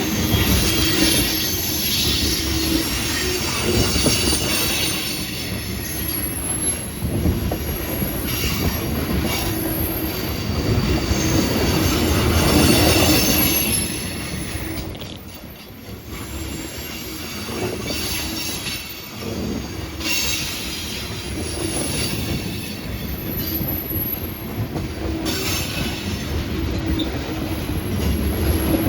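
Freight train rolling past, a steady rumble of the cars with thin, high-pitched wheel squeal over it; the sound dips briefly about halfway through.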